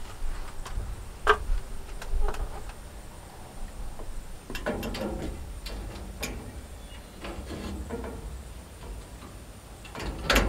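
Scattered clicks and knocks of metal gazebo frame parts being handled and fitted overhead, with two short rasping stretches about five and seven seconds in and a sharper knock near the end.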